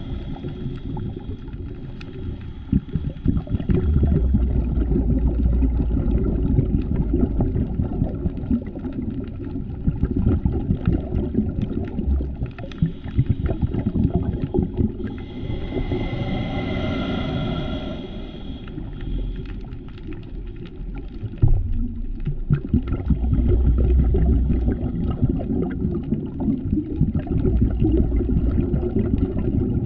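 A scuba diver breathing through a regulator underwater, slowed down: a continuous low rumble of bubbles that swells in surges. Midway a higher, whistling tone is held for about three seconds.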